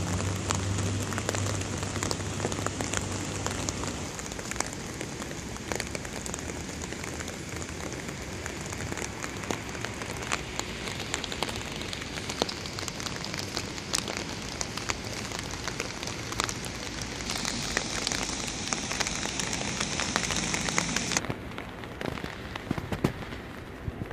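Rain falling steadily: a hiss with many small sharp drop hits close to the microphone. The hiss goes duller near the end.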